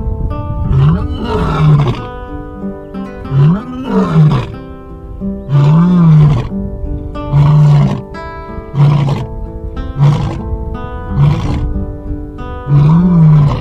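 A lion roaring again and again, about ten loud calls, each rising and falling in pitch, roughly one every second or so, over background music with long held notes.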